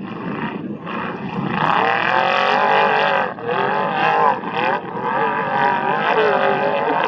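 Off-road race vehicle's engine at high revs, its pitch climbing and falling, with two brief drops in the revs partway through.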